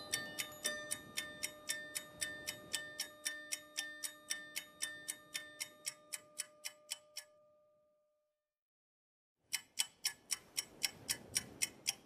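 Quiet background music with a clock-like ticking beat, about four ticks a second, over held tones. It fades out about seven seconds in, stops dead for over a second, then the ticking comes back without the tones.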